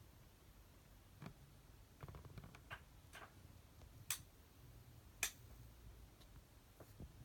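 Faint handling noise: scattered small clicks and taps as a die-cast metal model airliner is turned in the hands, with two sharper ticks about four and five seconds in.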